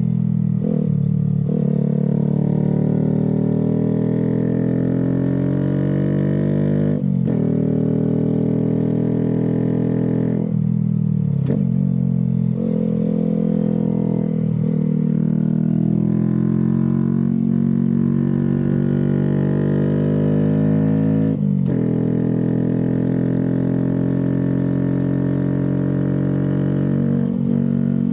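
Honda Grom 125's single-cylinder four-stroke engine running hard under load, its pitch rising and falling as the throttle opens and closes. There are a few brief drops, at about seven, ten to eleven, and twenty-one seconds in.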